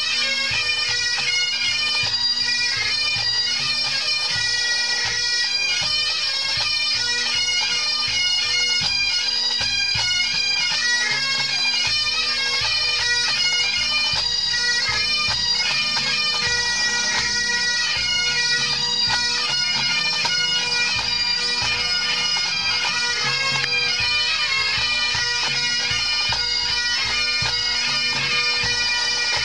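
A pipe band playing a medley: Great Highland bagpipes sound steady drones under a stepping chanter melody, backed by the band's drums.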